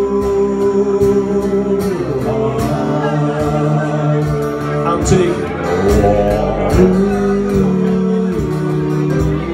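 Live Americana/country band playing: acoustic guitar and electric bass over a steady beat, with voices singing long held notes.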